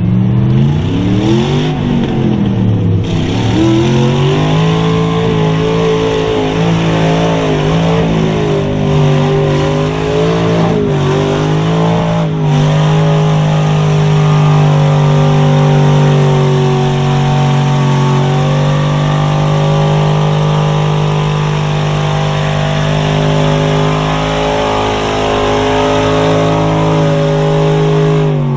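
Lifted square-body Chevy pickup's engine driving through a mud pit. It revs up and down twice in the first few seconds, then holds at high revs with small wavers.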